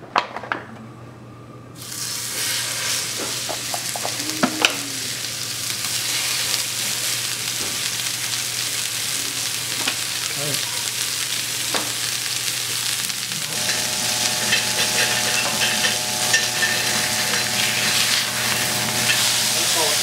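Ground beef burger patties frying in oil in a cast iron skillet: a steady sizzle that starts about two seconds in and carries on, with a few sharp clicks near the start.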